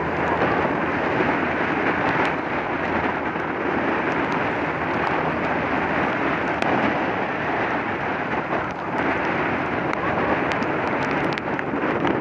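Steady rushing wind noise on the microphone of a moving motorcycle, with the machine and its tyres running on a wet road underneath.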